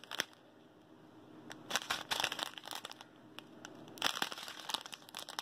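Thin plastic bags of diamond-painting drills crinkling as they are handled and turned over, in a few short spells with quiet gaps between them. The loudest spells come about two seconds in and again about four seconds in.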